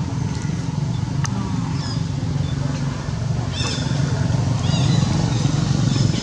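A motor engine running steadily, growing somewhat louder toward the middle, with a few short high-pitched calls about three and a half seconds in.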